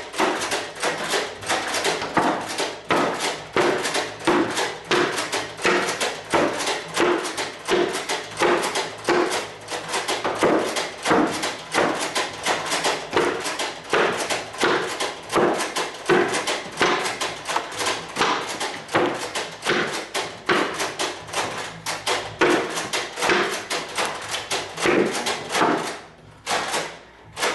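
Nerf blaster in continuous rapid fire, about four to five shots a second, until it runs out of ammunition and stops abruptly near the end.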